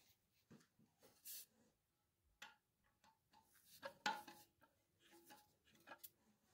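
Faint, scattered clicks, taps and light scrapes of a screwdriver and gloved hand working on the plastic fittings and bolts inside a porcelain toilet tank, with the busiest cluster about four seconds in.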